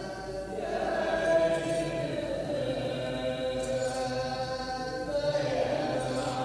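Background music: voices chanting together in long held notes, changing pitch in slow phrases.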